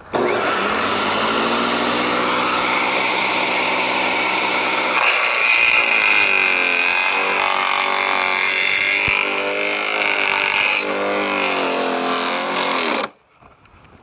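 Garden shredder running loud and steady while thin branches are pushed into its hopper and chewed up. Its pitch wavers and dips as the branches load it, and it stops abruptly about a second before the end.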